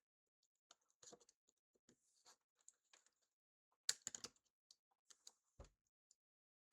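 Faint, scattered small clicks, taps and scrapes of iPhone parts being handled and pried apart, with a louder cluster of clicks about four seconds in.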